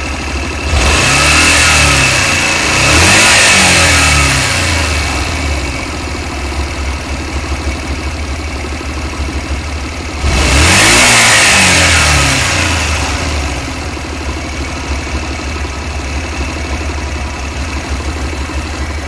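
Honda Varadero 125's V-twin engine idling and being revved: two blips near the start and one more about ten seconds in, each falling back to a steady idle. It runs as it should here, without the intermittent metallic knock it sometimes has.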